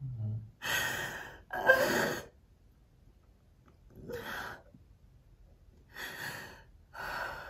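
A woman breathing hard in five deep, gasping, tearful breaths, the first two the loudest: crying in an emotional release.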